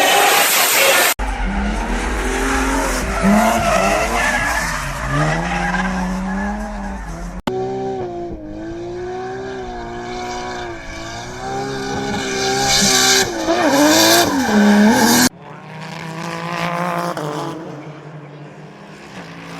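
Race car engines revving up and down through the gears, with tyres squealing as the cars skid. It comes as several separate clips that cut abruptly from one to the next, about a second in, halfway through and near the end.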